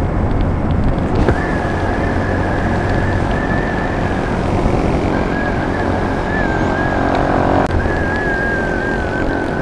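Yamaha Sniper 150's single-cylinder engine running steadily at cruising speed, with heavy wind rush over the microphone. A thin, steady high whine comes in about a second in and runs on, with a short break in the middle.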